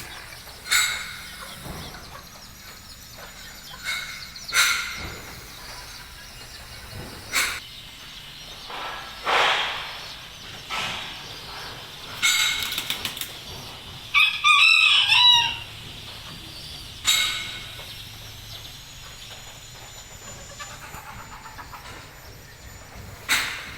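Bantam chickens clucking, with short calls every few seconds, and a bantam rooster crowing once about fourteen seconds in, the loudest sound.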